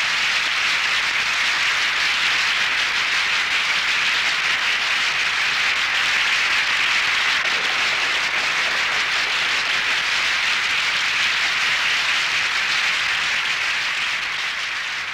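Audience applauding: steady, dense clapping that tapers off slightly near the end.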